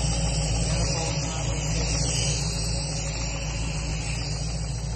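Ford Racing Boss 347 cubic-inch V8 crate engine idling steadily.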